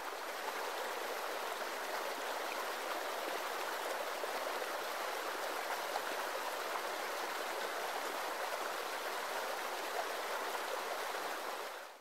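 Waterfall: a steady rush of falling water with no break in it, fading out at the very end.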